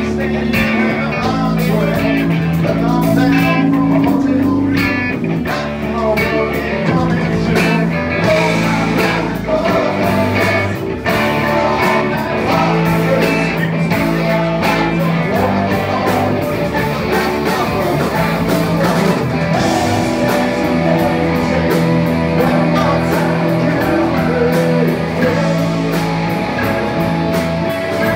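A live rock band playing: electric guitars, electric bass and drums.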